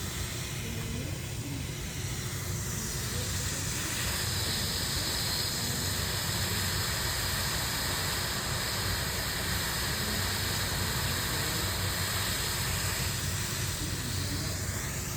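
Nitrogen plastic welder's hot-gas torch hissing steadily as nitrogen flows from the nozzle, over a low steady hum. The hiss grows stronger about three to four seconds in and then holds steady.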